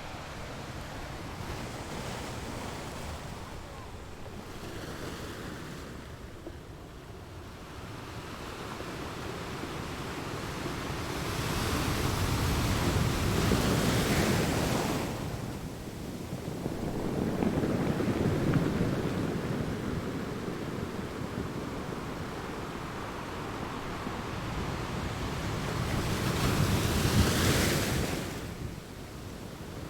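Ocean waves breaking and washing onto the shore, swelling and ebbing in slow surges. The loudest wash comes about halfway through and another near the end.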